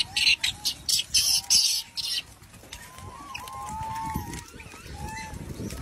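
A crowded troop of macaques giving many short, arching coo-like calls over one another while feeding, with several loud harsh bursts in the first two seconds.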